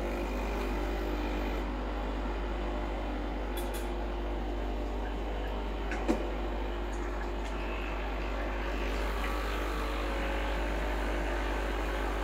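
Espresso machine's pump humming steadily as it pushes hot water through the group head in a blank shot, run to warm the machine up.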